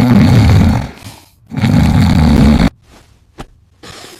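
A person snoring heavily: two loud snores, each about a second long with a short pause between, then a short click and a faint breath near the end. Heavy snoring of the kind the narrator links to sleep apnea.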